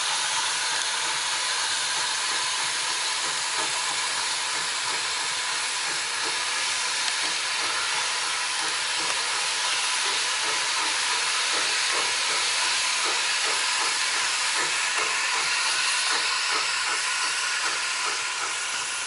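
Steam locomotive hissing steam as it pulls away, a steady hiss with a faint regular beat through the middle stretch.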